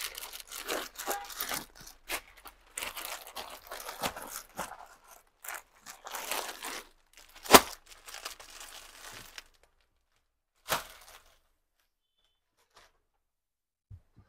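Crinkly packaging and saree fabric rustling as sarees are handled, with a sharp knock about halfway through and another a few seconds later. The last few seconds are near silent.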